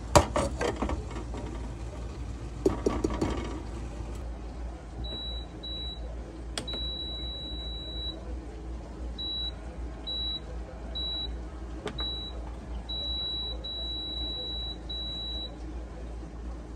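Two brief clatters of handling in the first few seconds. Then a PowerXL air fryer multi-cooker's control panel beeps from about five seconds in: a run of short, high single beeps mixed with several longer beeps, as its temperature and timer are set for preheating.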